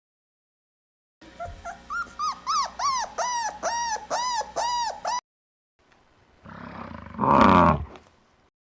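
Animal calls: a quick run of about a dozen short whining cries, each rising and falling in pitch, about three a second, cut off suddenly. After a short pause comes one louder call that falls in pitch.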